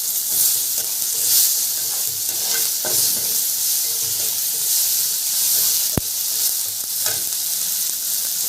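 Chopped tomatoes frying in hot oil with onions and spice paste, sizzling steadily while a spatula stirs and scrapes the pan. A single sharp click about six seconds in.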